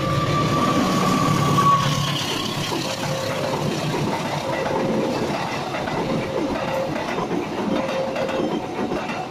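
Train horn ending about two seconds in as the train passes, then the cars rolling by with steady rumble and clickety-clack of the wheels over the rail joints.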